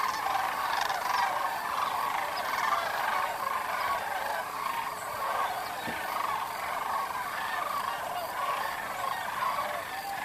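A large flock of sandhill cranes calling in flight: a dense, continuous chorus of many overlapping calls.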